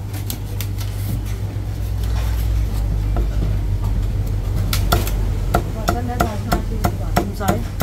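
Heavy Chinese cleaver chopping roast pork belly on a thick wooden chopping block: a few sharp strikes near the start, then a quicker run of chops, about two or three a second, in the second half.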